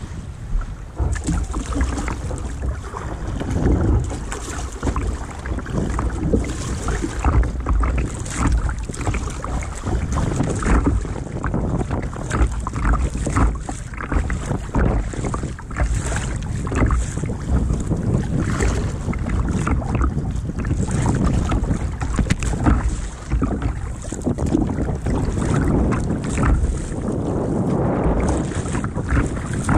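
Wind buffeting a microphone mounted on the bow of a sit-on-top kayak, with a constant low rumble. Sea water sloshes and splashes irregularly against the plastic hull as the kayak rides the waves.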